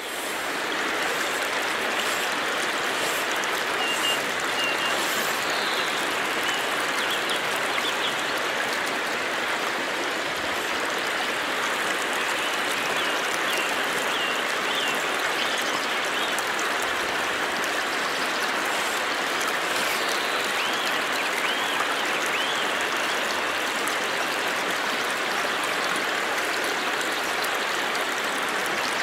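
Steady rush of a flowing stream.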